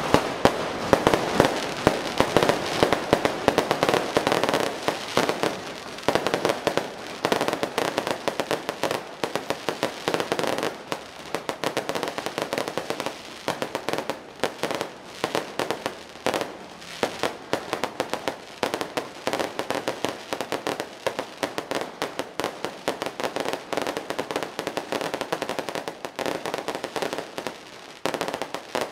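A cart-mounted battery of electronically fired aerial fireworks going off without pause: a dense stream of sharp bangs and crackling, several reports a second. The firing thins out slightly about halfway through.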